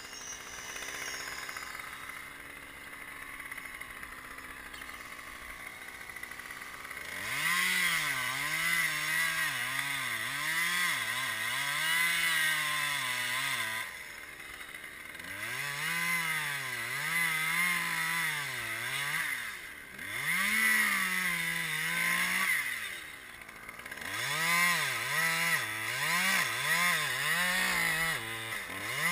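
Chainsaw revving in repeated bursts while cutting tree trunks from a lift bucket, its engine pitch swinging up and down under load, with short pauses between cuts. For the first several seconds, before the saw opens up, only a lower steady engine hum is heard.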